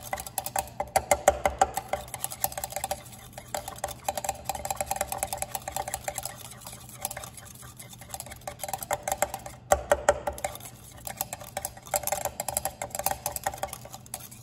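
A glass thermometer stirring a wet slurry of crystals in a glass beaker, clinking and scraping against the beaker wall in rapid runs of taps that ring briefly, with short pauses between the runs.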